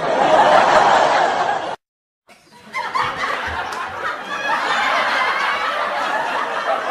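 Laughter from several voices, in two stretches that cut off and start abruptly, with a moment of dead silence about two seconds in.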